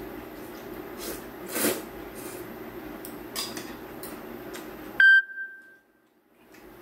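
Noodles being slurped and eaten, with a louder slurp about a second and a half in. About five seconds in, a single sharp electronic beep sounds, and the steady background hum cuts out for a moment.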